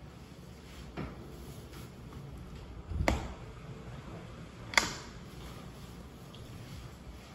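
Three short household knocks in a small bathroom: a faint tap about a second in, a heavier dull thump about three seconds in, and a sharp click just before five seconds as things are handled close by.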